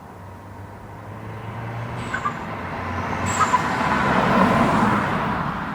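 Volkswagen Golf MK7 GTI's turbocharged four-cylinder driving: a low engine hum gives way to engine and road noise that swells over a few seconds, then eases off near the end.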